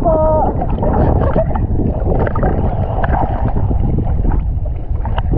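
A motorboat under way: a steady low engine rumble mixed with wind buffeting the microphone and water noise.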